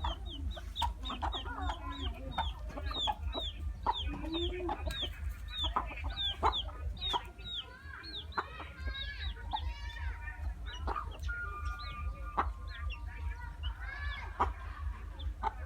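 Chickens clucking and calling, with many short, high peeps that fall in pitch and come several times a second, over a steady low hum.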